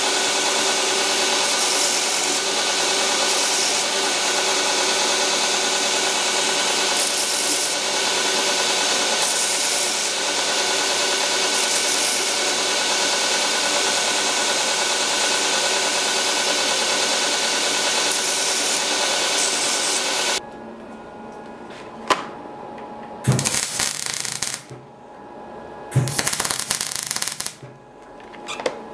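Belt grinder running with a small steel sword pommel held against the belt: a steady grinding rasp over the motor's hum, louder now and then as the piece is pressed on. About two-thirds through it stops abruptly, leaving a quieter background with a click and a couple of short hissing bursts.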